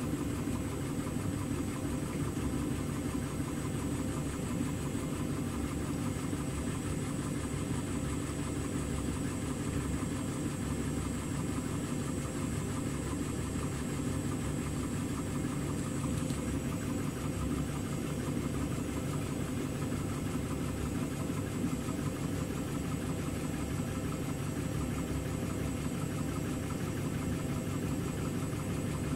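Indesit front-loading washing machine running with a steady hum as the drum turns through a tub full of foam: a suds lock, where too much detergent foam holds the machine back from spinning.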